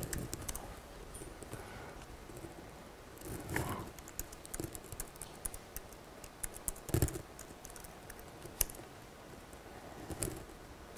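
Laptop keyboard typing: scattered runs of light key clicks, with a few heavier knocks.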